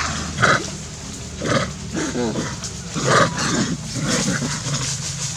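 Monkeys calling: a series of short squeaky and grunting calls, several in a row about a second apart, some wavering in pitch.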